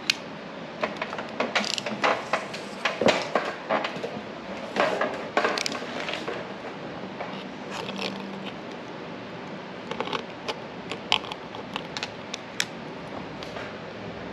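A utility knife cutting foam weatherstrip on a car roof rail: irregular sharp clicks and short scrapes, with handling noise.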